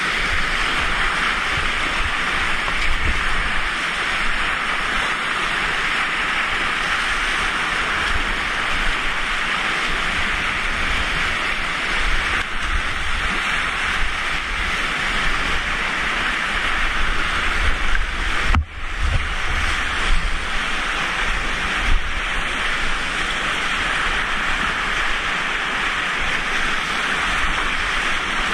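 Rushing whitewater of a river weir's wave, heard close from a kayak surfing in it, steady throughout with a low rumble underneath. The sound drops out for a split second about two-thirds of the way through.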